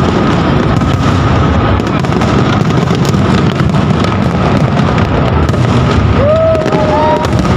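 Large fireworks display: a continuous rumble of booming shell bursts with many sharp bangs and crackles overlapping.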